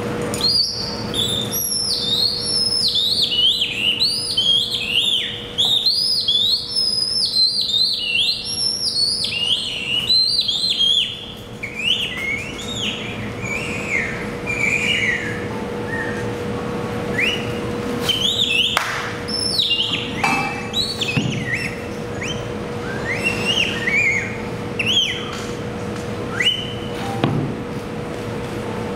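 Quick, high whistled chirps in swooping up-and-down phrases, like birdsong. They come thick for about the first ten seconds and more sparsely after that, over a steady low hum.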